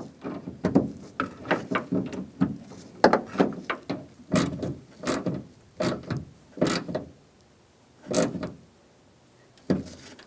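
Hand ratchet clicking in repeated short strokes as a bolt is tightened into the door handle's lock-cylinder grommet, with pauses between strokes in the last few seconds.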